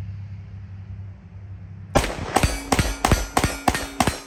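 Taurus 608 .357 Magnum revolver with a 6-inch ported barrel fired rapidly in double action: a quick string of loud shots, about three a second, starting about two seconds in.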